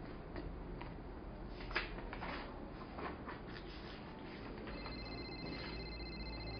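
Paper rustling and soft clicks as pages of a file are handled, then, about five seconds in, an electronic desk telephone starts ringing with a high, steady ring.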